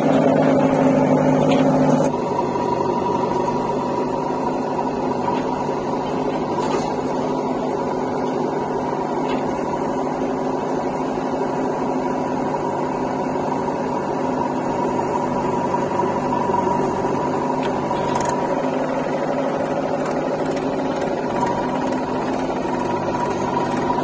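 Diesel engine of a JCB 3DX backhoe loader running steadily at a constant speed, a continuous even hum that steps down slightly about two seconds in.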